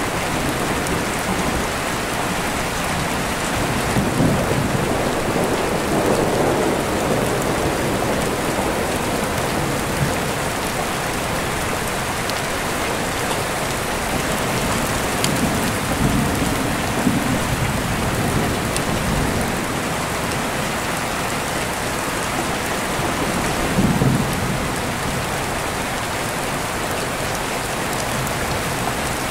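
Steady rain falling with deep rolling thunder, which rumbles up a few times: about four seconds in, again around the middle, and briefly near the end.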